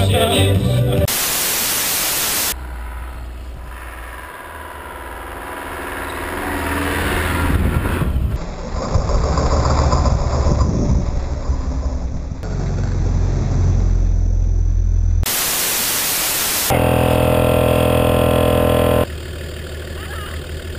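Two short bursts of loud hiss, like static, between clips. Between them, an off-road SUV's engine runs under load with a strong low rumble while the vehicle slides through deep snow.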